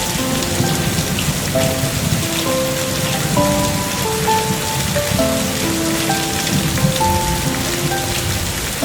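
Steady rain falling, with a slow, gentle melody of single held notes playing over it.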